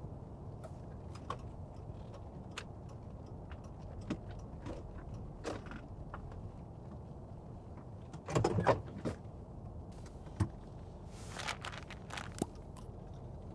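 Car cabin with a steady low rumble, and scattered small clicks and rustles of someone moving in the seat. There is a louder rattle about eight seconds in. Near the end a click and a short rustle fit a seatbelt being handled.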